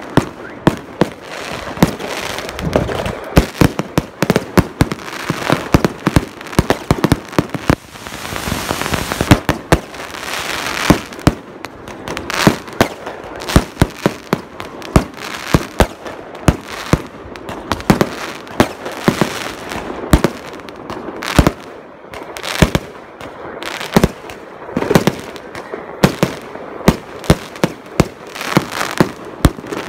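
Fireworks going off: a dense, irregular run of sharp bangs and cracks, with a hissing stretch about eight seconds in.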